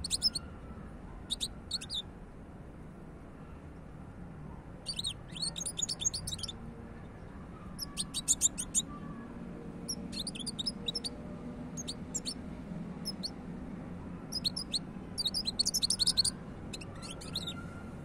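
European goldfinch singing: about seven short phrases of quick, high twittering notes, each lasting about a second, with pauses of a second or more between them.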